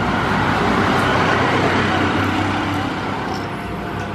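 Road traffic noise: a motor vehicle passing close by, swelling in the first second or two and easing off after about three seconds.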